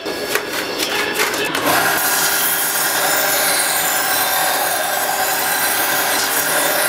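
A few clicks and knocks of small metal parts handled on a bench. Then, about two seconds in, a benchtop belt sander (Cocraft HBD 500, 4 x 36 inch belt) grinds a small steel piece, a steady grinding noise over the hum of its motor, throwing sparks.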